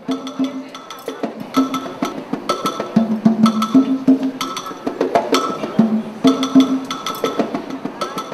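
Percussion-led music: a steady pattern of sharp strikes over held low notes.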